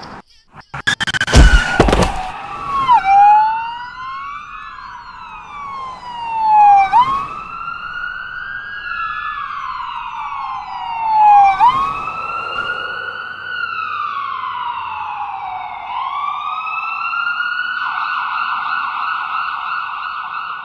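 A loud sharp impact about a second in, followed by an emergency-vehicle siren wailing, its pitch rising and falling in slow sweeps about every four to five seconds.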